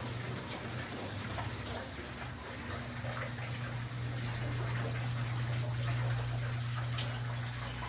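Water flowing steadily, with a steady low rumble of wind.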